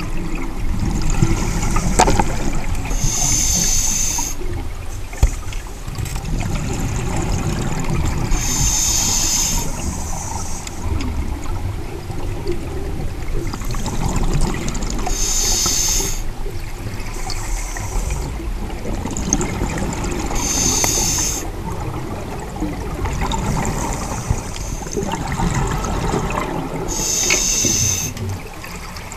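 Scuba diver breathing underwater through an open-circuit regulator: a sharp hiss about every six seconds, five times in all, with rumbling exhaled bubbles in between.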